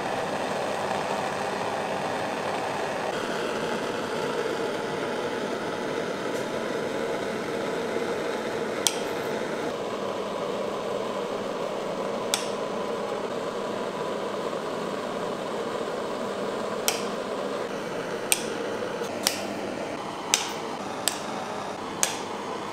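Knife blade clicking sharply against a marble slab as sticks of chocolate are sliced: a few single clicks, bunched near the end, over a steady rushing hiss.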